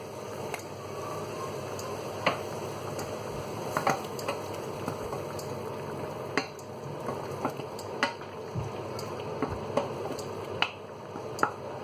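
Wooden spoon stirring chopped tomatoes in olive oil in a stainless steel saucepan, knocking against the pan now and then, over a steady sizzle.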